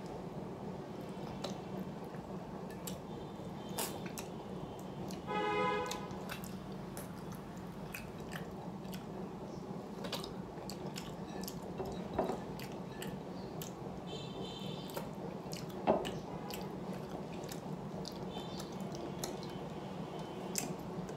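Close-up eating sounds: chewing and small wet clicks of a rice and fish curry meal, over a steady background hum, with one brief pitched sound about five seconds in.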